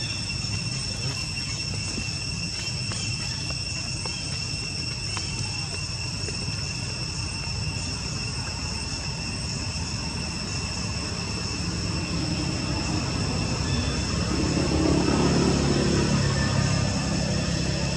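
Outdoor ambience: a steady high insect drone over a low engine rumble that swells in the last third and peaks near the end, like a vehicle passing.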